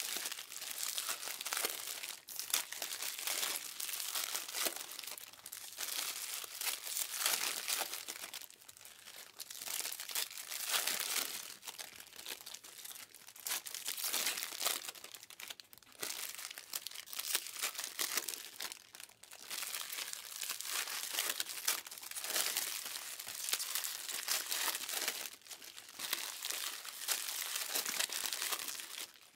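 Plastic trading-card pack wrappers crinkling and tearing as Panini Mosaic packs are ripped open one after another, the crackle coming in waves with short breaks between packs.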